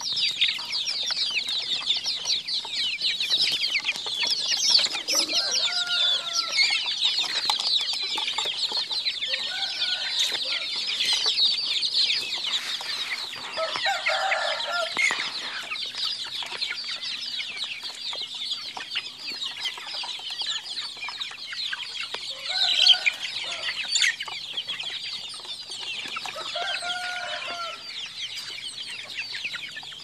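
A penned flock of chickens calling, with constant, dense high-pitched peeping and cheeping. Lower clucks break in every few seconds.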